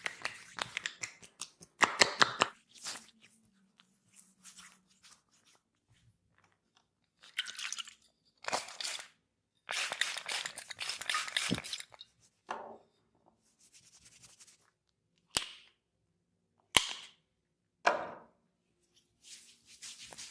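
Hands working over skin in a massage, in separate bursts of rubbing and slapping, with two sharp single cracks a little over a second apart near the end.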